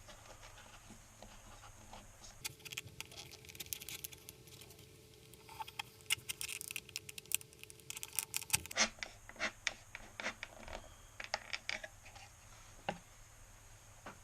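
Bamboo skewer being pushed through holes in a plastic bottle, with the bottle handled: a quiet, irregular run of light scratches, scrapes and clicks.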